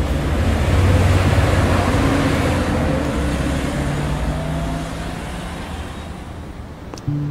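Street traffic with a bus moving off or passing: a low engine rumble and road hiss that swells about a second in, then fades away over the following seconds.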